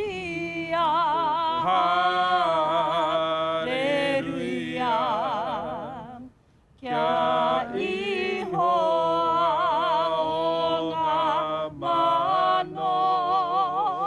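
A Māori waiata sung unaccompanied, with wide vibrato on long held notes, breaking off once briefly about halfway through.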